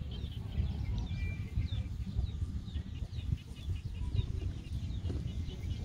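Many small birds chirping in quick, short high notes, over a steady low rumble.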